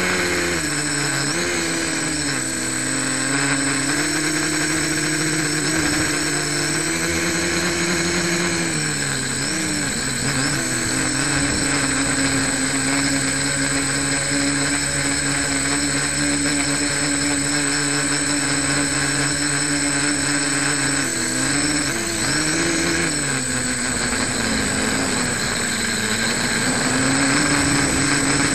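A homemade quadcopter's electric motors and propellers in flight, heard from its onboard camera: a steady hum over a hiss of air, its pitch rising and falling with the throttle, with two short dips about nine and twenty-two seconds in.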